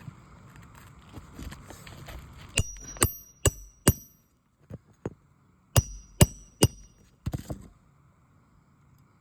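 Hammer blows on metal, each with a short high ring: a run of four quick strikes about two and a half seconds in, then three more about six seconds in, followed by a couple of lighter knocks. Soft scraping and shuffling on the shingles comes before the strikes.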